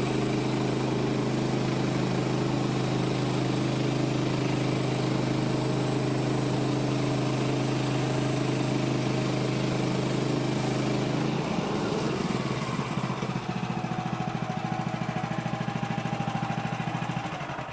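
Bandsaw sawmill's gasoline engine running at a steady speed under load, then dropping to a rougher, pulsing note about eleven seconds in and dying away at the end.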